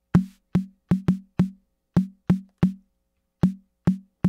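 AKAI Rhythm Wolf's analog snare drum voice playing a sequenced pattern of about ten hits in an uneven rhythm. Each hit is a short, low-pitched ringing tone with a brief hiss of noise over it, dying away quickly.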